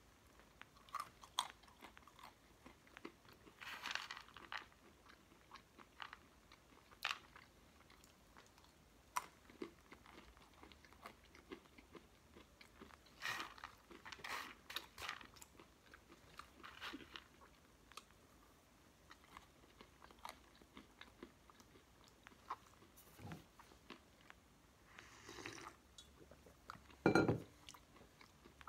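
A person chewing and crunching crunchy food close to the microphone, with scattered short crunches and bites throughout and a louder thump about a second before the end.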